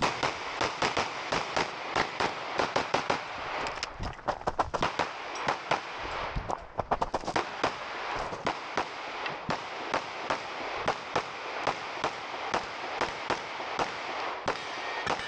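Rapid 9mm pistol fire from a Glock 17 Gen 5: quick pairs and strings of shots, several a second, with short breaks in between as the shooter moves between positions.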